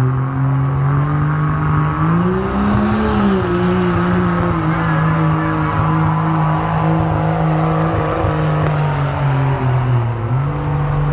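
Diesel pickup truck engine at full throttle, pulling a weight-transfer sled, a loud steady high-revving drone. Its pitch climbs about two seconds in, settles back a little, then dips briefly near the end before coming back up.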